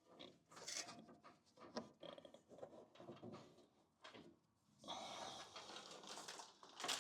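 Faint irregular rustling, scraping and light knocks of wires being handled and bundled with tape, with a longer rustling stretch near the end.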